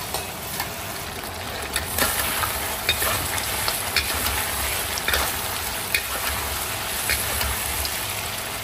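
Food sizzling as it is stir-fried in a wok. A metal spatula scrapes and knocks against the pan at irregular moments, about once or twice a second, over a steady hiss.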